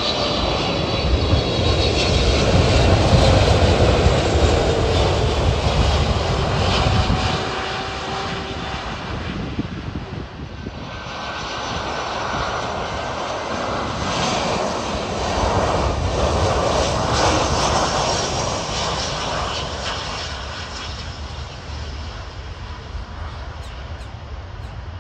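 Jet airliner passing low on its landing approach, engines rumbling and whining. The sound swells, eases about ten seconds in, builds again and fades toward the end.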